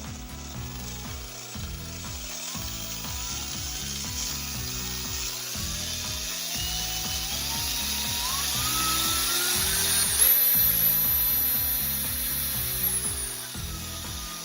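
Makita DF474D cordless driver drill running, its motor whine climbing in pitch over several seconds. It holds a steady top speed for about three seconds, then winds down near the end.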